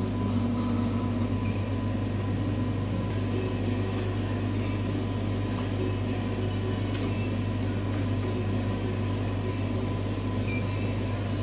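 Cornley K-Lite 3 electrolyte analyzer giving two short high beeps, one about a second and a half in and one near the end as its K, Na and Cl results come up. Under them runs a steady low hum.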